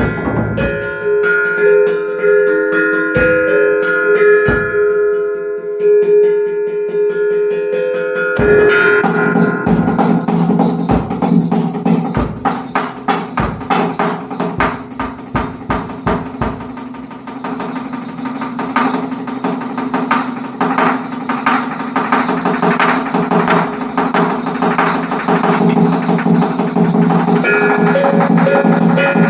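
Drumming with music: for the first few seconds, held ringing tones with scattered strikes, then about eight seconds in, fast continuous drum hits over a steady low drone.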